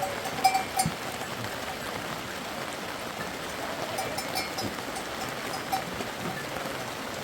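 Steady hiss of falling rain, with a few small bell clinks about half a second in and again around four seconds in.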